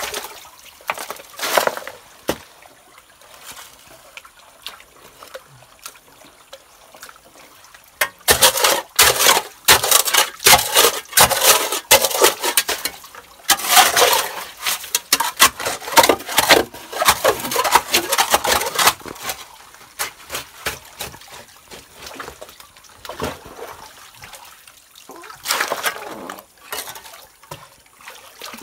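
Hand tools digging through stony gravel and muddy water: a hoe and scoop scraping, splashing and knocking stones. The strokes come scattered at first. From about a third of the way in to about two-thirds they run into a dense stretch of scraping and clattering gravel, then thin out to scattered scrapes again.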